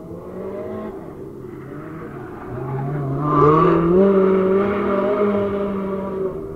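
Drift car's engine at high revs as it slides through a corner: distant at first, then climbing in pitch and growing loud as it comes past about three and a half seconds in, holding high revs and fading as it pulls away.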